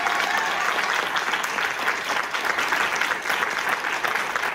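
A small crowd applauding: steady clapping from many hands.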